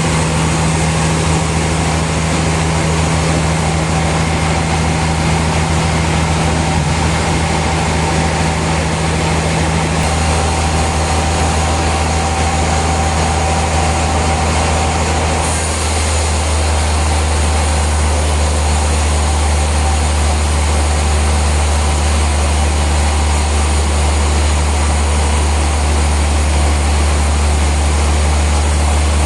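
Heavy sawmill machinery running with a loud, steady low hum and a dense mechanical din. The hum changes pitch abruptly twice, about ten and about sixteen seconds in.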